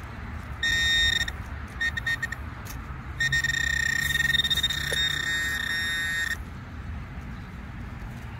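A metal detector's electronic buzzing tone sounds three times: a short burst about half a second in, a stuttering burst near two seconds, and a longer steady buzz from about three to six seconds, signalling a metal target close to the coil.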